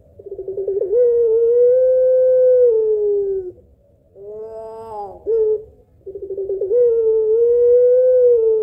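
Puter pelung, a long-voiced domestic Barbary (ringneck) dove, cooing. Each call opens with a quick stutter of short notes and runs into one long drawn-out note that drops at the end. A shorter note comes between the two calls, and the second long call starts about six seconds in.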